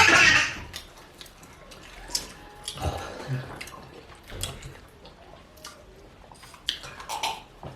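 Wet eating sounds of a mukbang: slurping and chewing of fish pepper soup with starch, with small scattered clicks. A short loud breathy burst comes right at the start.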